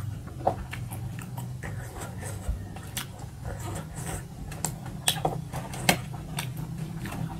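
Close-miked eating by hand: chewing with many sharp wet mouth clicks and smacks, and fingers mixing rice and curry on metal plates, over a steady low hum.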